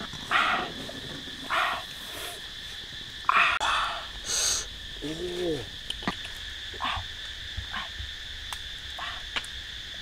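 Steady high drone of forest insects, with several short noises scattered through it and one brief call, rising then falling in pitch, about five seconds in.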